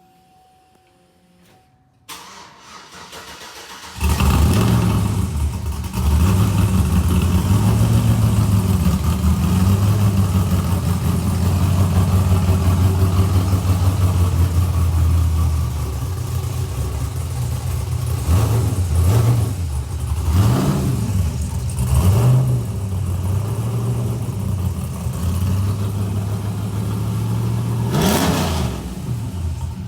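A car engine is cranked and starts about four seconds in, then idles loudly with an uneven beat. Near the end it is blipped in three quick revs, then revved once more.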